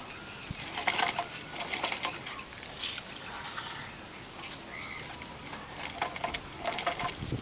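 A black lacquered vessel being sanded by hand as it turns on a hand-driven wooden lathe: scratchy rubbing in irregular short bursts, quieter for a few seconds in the middle.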